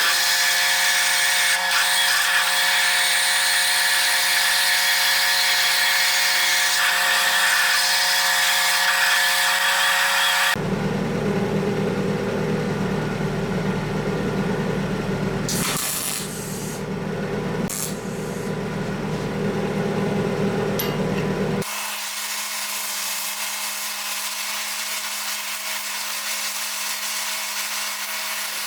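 Power tools running while small metal parts for a gate-handle shaft are machined, a steady mechanical whir with cutting noise. The sound changes abruptly twice, about ten seconds in and again about twenty-two seconds in, as it switches between machines or stages of the work.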